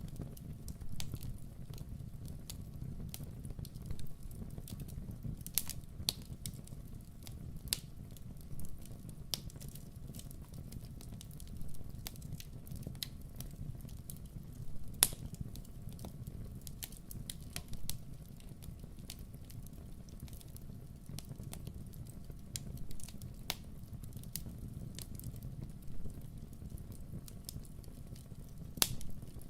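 Campfire burning: wood crackling with scattered sharp pops over a low steady rumble, the loudest pops about halfway through and near the end.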